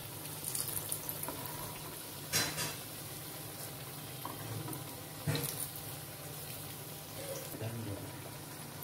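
Chana dal fritters (masala vada) sizzling steadily as they deep-fry in hot oil, with a metal slotted spoon striking the pan about two and a half and five seconds in as the fritters are turned.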